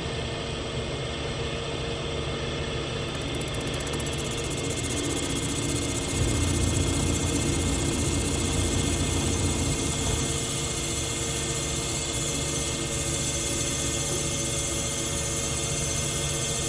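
CNC machine running steadily as it machines a one-piece motorcycle seat, a constant whir with a high hiss; it grows louder with a deeper hum for a few seconds near the middle, then settles back.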